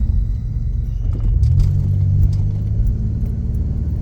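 Steady low rumble of a car heard from inside the cabin while it is driving, with a few faint light clicks.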